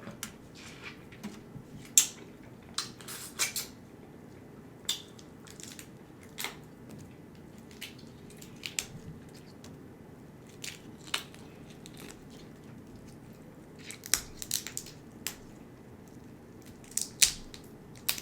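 Close-miked eating of a seafood boil of shrimp and mussels: scattered wet clicks, smacks and crunches of chewing, irregular and of varying loudness, with a few sharper clicks near the start and again about two-thirds of the way through.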